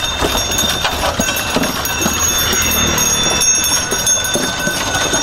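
Bullock carts passing on a road: the bullocks' bells ring steadily, with a run of irregular clopping hoof knocks over a low rumble of cart wheels.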